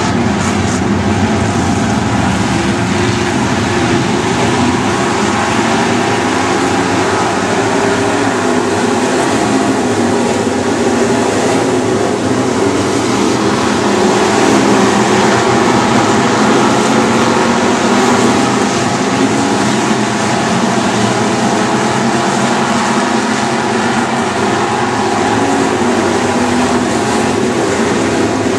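Several dirt-track Super Stock race car engines running together in a steady, loud drone with wavering engine tones, the field circling slowly in line under caution.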